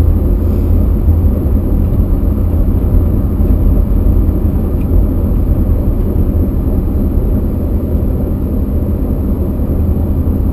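Car driving at a steady speed: an even, low rumble of engine and road noise that stays level throughout.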